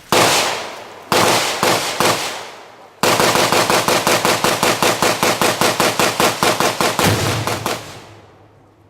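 Rifle shots: a single shot right at the start, another about a second later with a couple more after it, then a rapid string of roughly five shots a second for about five seconds before the firing stops.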